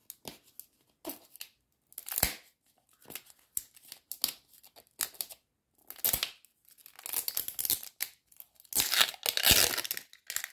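The plastic wrapper on a Mini Brands capsule ball being picked at and peeled off. Scattered small crackles and clicks come first, then a longer, louder stretch of crinkling and tearing over the last few seconds. The wrapper is stuck down hard and hard to get off.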